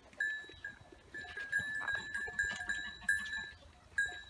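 A lamb sucking milk from a plastic feeding bottle: a thin, high squeak comes and goes in short stretches as it pulls on the teat, with small sucking clicks between.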